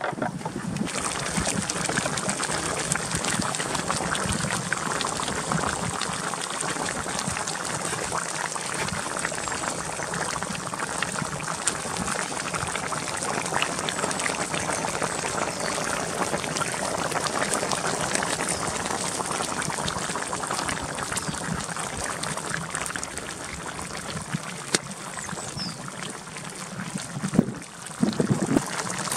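Tomato sauce with chicken and vegetables boiling in a frying pan over a campfire: a steady bubbling.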